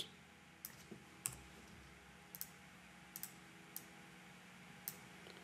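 Faint computer mouse clicks, about nine in all, sparse and irregular with a couple of quick pairs, over a faint steady room hum.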